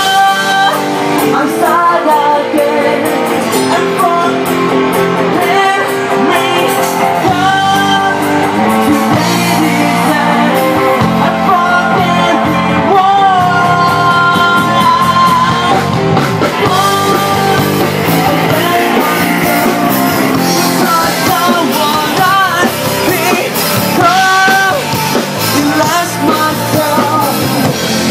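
A live band playing a rock song: a singer's melody over guitar, bass and drums.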